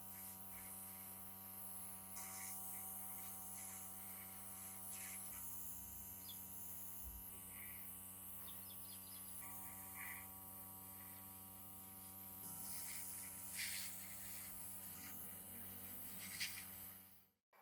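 A steady electric hum runs throughout, with scattered light clicks and scrapes of small parts being handled; a slightly louder click comes near the end.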